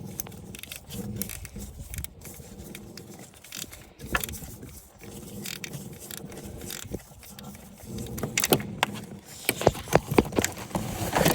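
Ratchet with a 10 mm socket clicking and metal tool clinks as the camshaft position sensor's hold-down bolt is backed out; the clicks come faster and louder in the last few seconds.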